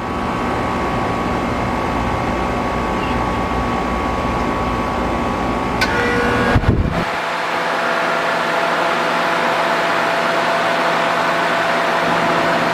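Central air conditioner outdoor unit running with a steady fan and machine hum. About halfway through the sound changes abruptly: the deep rumble drops out and a steadier hum with a few held tones carries on.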